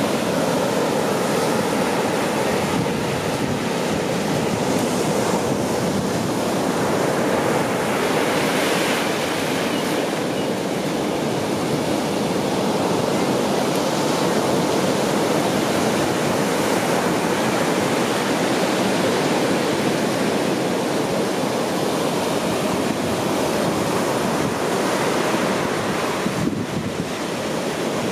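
Ocean surf breaking on a sandy, rocky beach: a steady rushing wash of waves that rises and falls a little.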